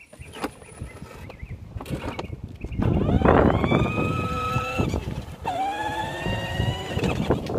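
A battery-powered ride-on toy car's electric motor and gearbox whining in two bursts, each rising in pitch as it starts, over a rough rumble.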